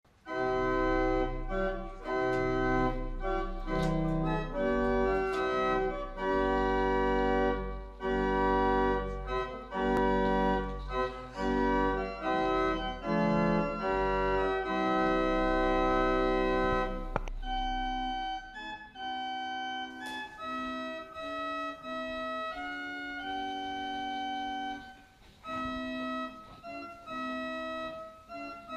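Church organ playing slow sustained chords over a deep bass pedal note. The pedal drops out about two-thirds of the way through, leaving lighter, higher chords.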